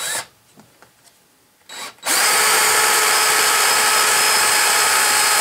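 A power tool running steadily for about four and a half seconds, starting about two seconds in, with a brief scrape right at the start.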